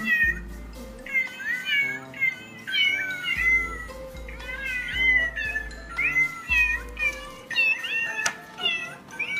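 Many short cat meows in quick succession, set against music with a low bass line.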